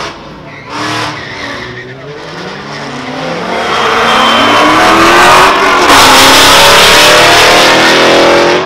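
Supercar accelerating hard down a drag strip. Its engine climbs in pitch through several upshifts, and the sound swells to a loud, steady roar as the car passes, then cuts off abruptly.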